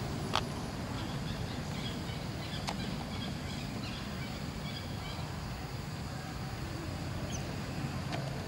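Outdoor ambience: a steady low rumble with faint, short, high chirps from about one to five seconds in, and two sharp clicks, one just after the start and one a little before three seconds in.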